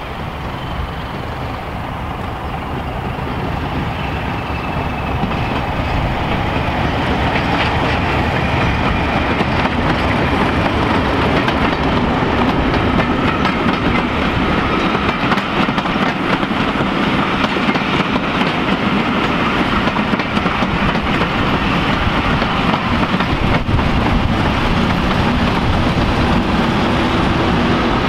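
Diesel locomotive hauling a train of coaches, its engine growing steadily louder as it draws near and passes. The coaches' wheels follow, running and clicking over the rail joints.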